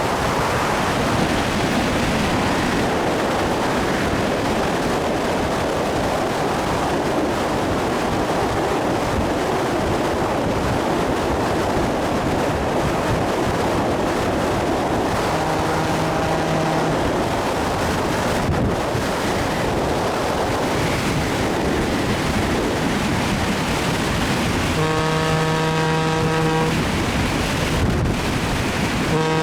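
A train running with a steady rushing noise, and its locomotive horn sounding three times: once about halfway through, a longer blast near the end, and a short one right at the end.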